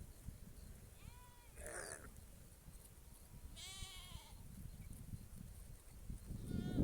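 An animal calling in short pitched cries, each rising and falling: one about a second in, another a little before four seconds, and a third starting near the end, over a low rumbling background.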